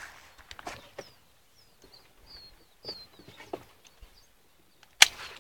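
Pheasant poults cheeping: short, high, falling peeps in quick succession. Soft knocks and rustles of handling run alongside, and a sharp click comes about five seconds in.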